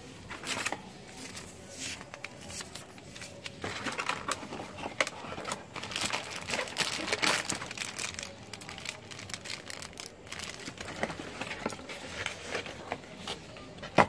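Paper instruction leaflets rustling and a clear plastic bag with a cable inside crinkling as they are handled, irregular and busiest in the middle few seconds. A single sharp tap at the very end.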